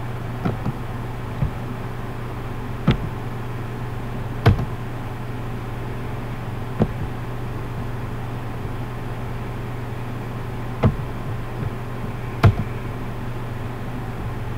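A steady low electrical hum, with a handful of sharp clicks that come a second to several seconds apart.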